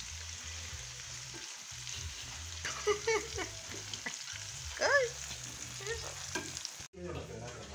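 Cassava chunks deep-frying in hot oil in a pan, a steady sizzle. Two short wavering cries break through about three and five seconds in, the loudest moments.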